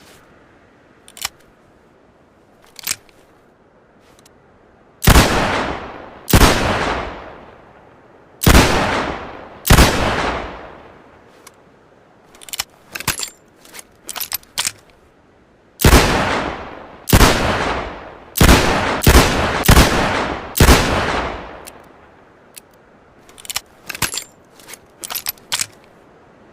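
.357 Magnum revolver firing: a slow string of four shots, then a quicker string of about six, each shot ringing off in a long fading tail. Sharp metallic clicks come before, between and after the strings, the sound of the revolver being cocked and handled.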